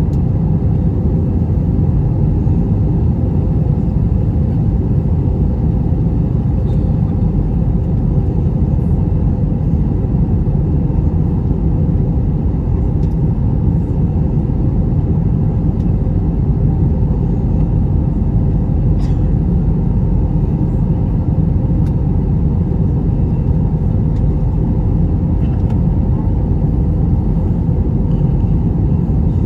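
Steady, loud rumble of an Airbus A321-200 heard from inside the passenger cabin: engine and airflow noise, low and unchanging throughout.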